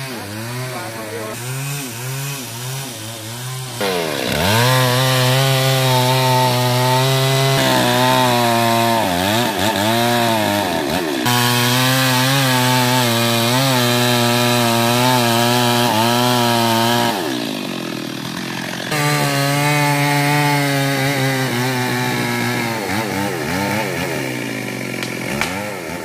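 Stihl MS 382 two-stroke chainsaw cutting wood. It is revved unevenly for the first few seconds, then held at full throttle from about four seconds in. Near two-thirds of the way through it eases off briefly, then goes back up to full throttle.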